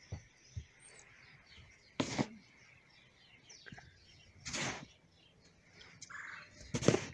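Small birds chirping, many quick short chirps. Three short, louder bursts of rustling noise break in about two, four and a half and seven seconds in, the last the loudest.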